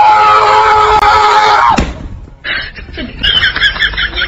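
A loud, long scream held at a steady pitch that falls off abruptly just under two seconds in, followed by a run of quick, high chirping calls.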